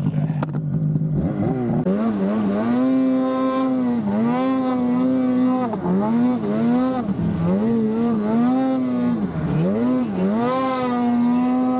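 Naturally aspirated Polaris RMK Khaos two-stroke snowmobile engine revving under throttle, its pitch climbing to a high steady note, dipping and climbing again over and over as the throttle is worked. It starts lower and holds its highest pitch longest near the end.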